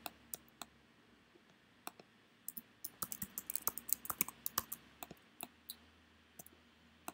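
Faint computer keyboard typing and mouse clicks: a few single clicks, then a quick run of keystrokes from about two and a half seconds in, thinning to a few more clicks near the end.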